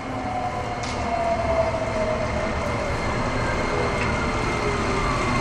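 Nagoya Municipal Subway Tsurumai Line train running in the tunnel and slowing into a station: the traction motors' whine slides steadily down in pitch over the rumble of the wheels, the sound of the train braking. There is a short hiss about a second in.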